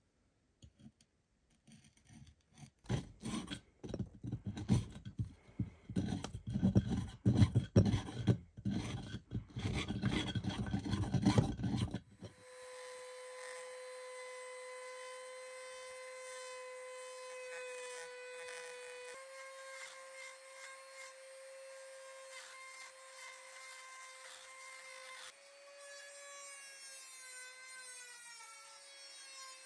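A steel blade scraping rotted wood and rust out of the eye of a rusty forged hammer head, in irregular rasping strokes. About twelve seconds in, a handheld rotary tool starts and runs with a steady high whine, its pitch shifting slightly twice as it grinds the head.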